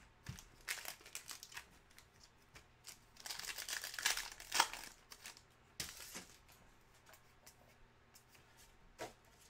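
Foil wrapper of a trading card pack being torn open and crinkled, a dense crinkling stretch about three seconds in, with scattered soft clicks of cards being handled.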